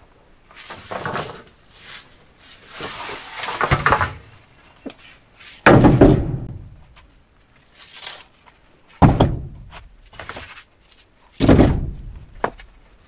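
Three loud, heavy thuds a few seconds apart, with rustling and scraping between them.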